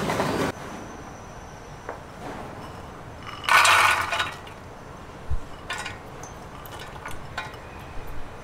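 Light clinks and knocks of glass and dishes being handled, with one louder, noisy clatter lasting under a second about three and a half seconds in. A louder noise cuts off about half a second in.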